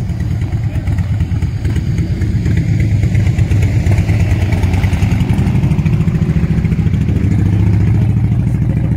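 A vehicle engine idling close by: a steady, loud low rumble with a fine, even pulse, growing slightly stronger about halfway through.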